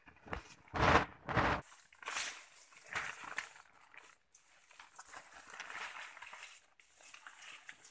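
Coffee-tree branches and leaves rustling and shaking, with two loud crackling rustles about a second in and softer rustling after.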